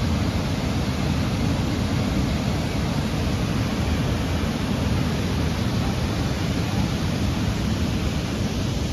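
Floodwater rushing through the dam spillway at flood stage: a loud, steady rush, heaviest in the low range.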